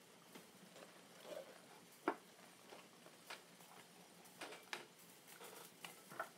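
Faint scattered soft crackles and ticks of steamed cabbage leaves being rolled and peeled apart by hand, with one sharper tap about two seconds in.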